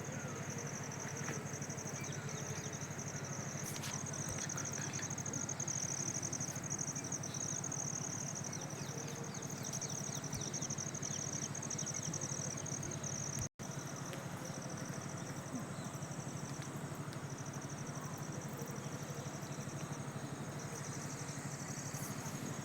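Insects chirring steadily in a fast, pulsing high trill over a low steady hum, with a few short bird chirps in the first few seconds. The sound cuts out for an instant about halfway through.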